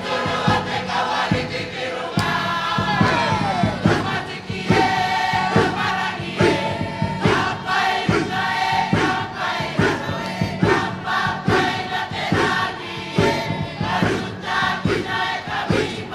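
A large crowd of Cook Islanders singing together in chorus, many voices in harmony, over a strong regular beat of about two strokes a second.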